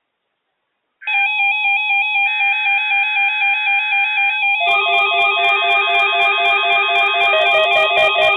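Silence for about a second, then instrumental music starts: a quick, trilling melody that steps up and down. About halfway through, a lower bass line and a steady ticking beat join in.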